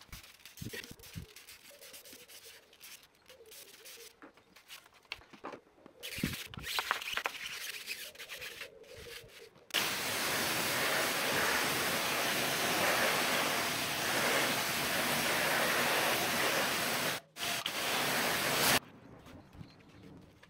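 Pressure washer jet hissing loudly and steadily against an alloy wheel for about nine seconds, breaking off once for a moment near the end. Before it there are soft clicks and short spray sounds, and after it a brush scrubbing foam on the wheel.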